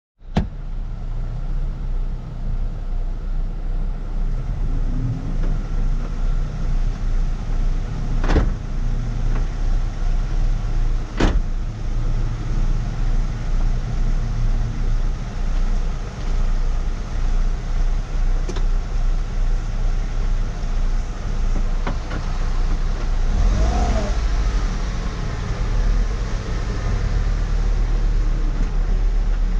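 2004 Ford Focus engine running steadily, with a few sharp clicks, three of them in the first twenty seconds, and a short wavering sound about two-thirds of the way through. The car has a clutch that the owner believes was worn by revving to 6,000 rpm, and it makes odd noises when shifting.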